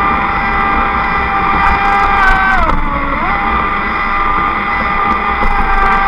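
Traxxas Spartan RC boat's brushless electric motor whining steadily at high throttle on a 4S LiPo, over a low rush of water and wind. About halfway through, the whine drops in pitch for a moment as the throttle eases, then climbs back.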